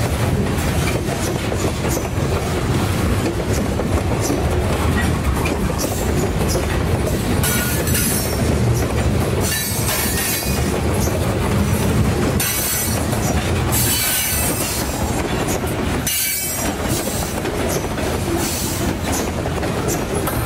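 Loaded cement hopper cars rolling past at close range: a steady rumble of steel wheels on rail with clickety-clack over the joints. High-pitched wheel squeal comes and goes several times.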